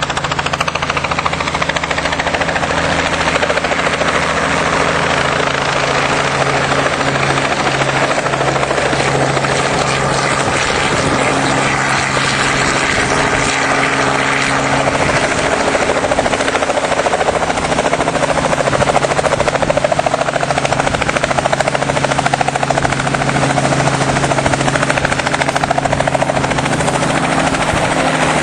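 Helicopter running steadily, a loud continuous drone of rotor and engine with a steady low hum under it.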